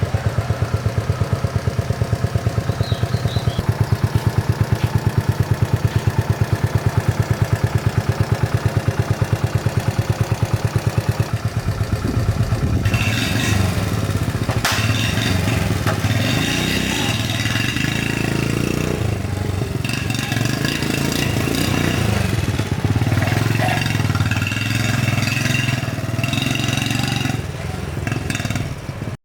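Restored 1980 Honda Super Cub 50cc single-cylinder four-stroke engine idling with an even, rapid beat, then from about halfway revving up and down unevenly.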